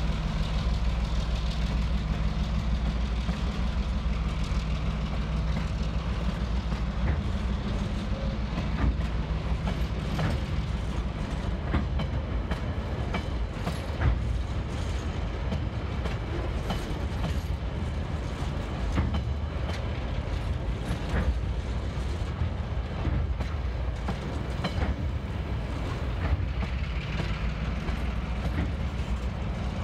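Loaded cement hopper wagons of a freight train rolling past, their wheels clicking and knocking irregularly over the rail joints. The diesel locomotive's engine hum is heard at first and fades out about six seconds in.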